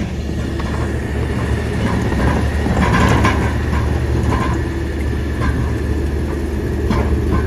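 A heavy engine idling with a steady low rumble. A few light clicks and knocks sound over it.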